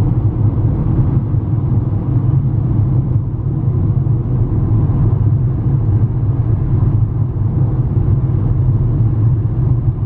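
Steady low rumble of road and engine noise heard from inside a moving car's cabin.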